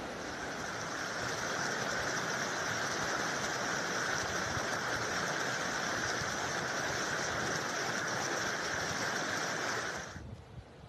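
Steady rushing of water, cutting off suddenly about ten seconds in.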